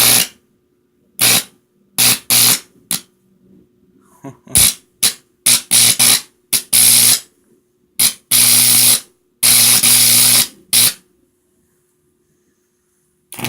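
High-voltage arc from a microwave oven transformer buzzing into an apple in repeated bursts, some brief and some lasting about a second, with a long quiet gap near the end; a faint steady transformer hum runs underneath.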